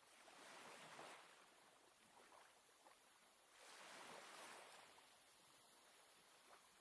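Faint sea waves washing in, swelling twice about three seconds apart.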